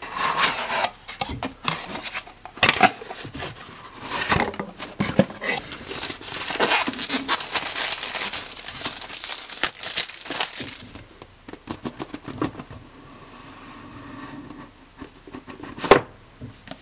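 Unboxing handling: a cardboard box opened and plastic wrap crinkled and pulled off the product box, with scattered taps and clicks. The crinkling is busiest in the first half and stops after about eleven seconds. Quieter handling of the cardboard box follows, with one sharp click near the end.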